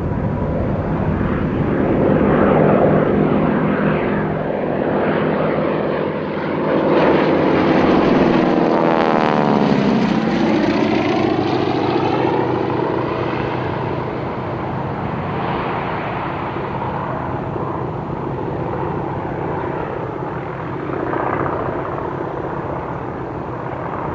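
Spartan 7W Executive's Pratt & Whitney R-985 Wasp Junior radial engine droning as the aircraft flies a display. It passes close about ten seconds in, its note falling as it goes by, then fades slightly.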